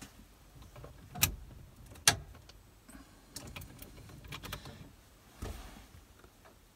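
Ignition key switch and keys being worked to turn a Peugeot Partner's ignition off and on again: two sharp clicks less than a second apart, then a run of lighter clicks and a duller thump near the end.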